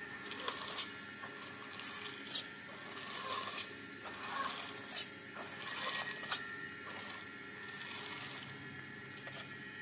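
Radio-controlled toy tractor driving and towing a loaded trolley: its small electric motor and gearbox whir steadily, with irregular crackles and clicks from the tyres and trolley on gritty concrete.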